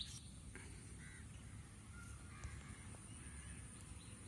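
Faint crows cawing in the background over low outdoor ambience, with a light tap near the start.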